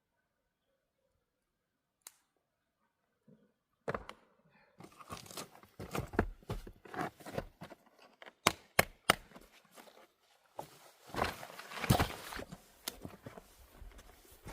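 Irregular crunching and rustling, with sharp cracks and knocks, from something dry being handled or broken. It starts after about four seconds of near silence, with the loudest cracks near the middle and end.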